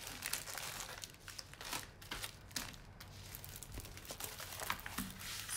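Crinkling and rustling of a rolled diamond painting canvas, covered in plastic film, and its paper wrapping as they are unrolled and handled by hand, in a string of irregular sharp crackles.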